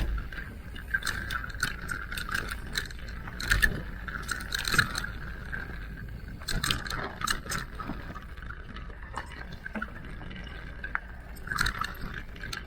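Electric mountain bike ridden over a rough trail: tyres running over dirt and rocks, with frequent irregular rattles and clacks from the bike, busier in the first half.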